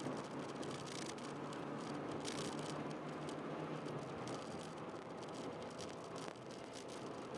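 A stock 2005 Honda Jazz 1.3's four-cylinder engine running at fairly steady revs, heard from inside the cabin, with interior trim rattling and clicking throughout.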